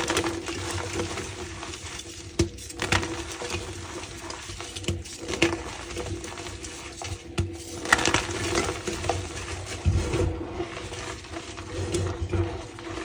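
Block of reformed gym chalk being crushed and crumbled by hand, crunching and squeaking, with irregular crackling and a louder crunch every second or two.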